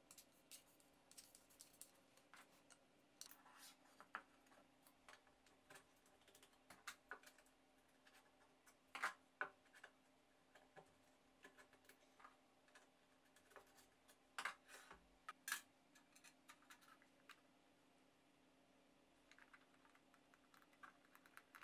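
Small clicks, taps and knocks of 3D-printed plastic connectors and wooden dowels being handled and screwed together. The sounds are scattered and irregular, with louder knocks about nine seconds in and around fourteen to fifteen seconds in, over a faint steady hum.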